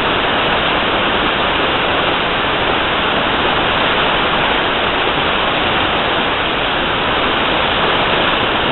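Steady, loud rush of a waterfall and its river pouring over rocks, unbroken throughout.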